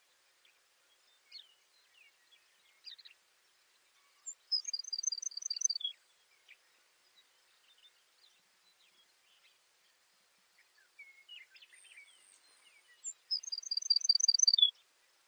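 Baird's sparrow singing two songs about nine seconds apart, each a single high introductory note, a quick run of about six repeated notes and a lower closing note. Faint scattered chirps and ticks sound between the songs.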